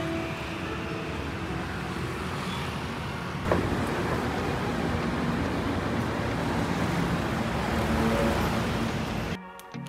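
City street traffic: a steady rush of passing cars and motor scooters at a busy intersection, with a single sharp knock about three and a half seconds in. Near the end the traffic noise cuts off abruptly and music takes over.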